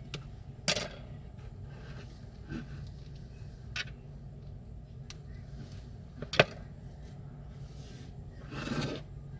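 Small hand tools working on an iPhone 6S during a battery replacement: a few separate sharp clicks and taps, the loudest about six seconds in, then a short scrape near the end, over a steady low hum.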